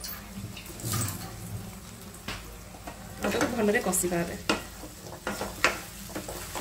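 Ginger-garlic paste and browned onions sizzling in oil in a non-stick pan, stirred with a wooden spatula that scrapes and knocks against the pan.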